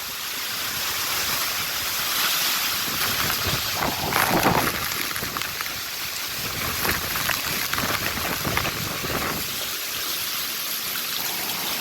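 Hurricane wind rushing with rain falling, the wind buffeting the microphone; a stronger gust swells about four seconds in.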